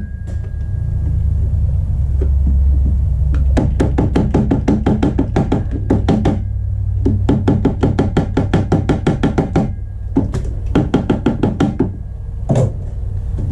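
Hammer tapping quickly on cardboard held against the heater's base, about five light taps a second in three runs, to punch out the spacing and size of the holes for a gasket-style template. A steady low rumble runs underneath.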